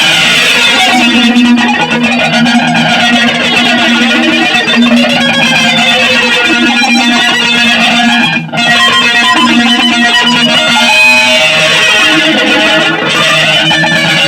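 Music from a noise jam: electric guitar played through effects, dense and loud, with a brief dip about eight and a half seconds in.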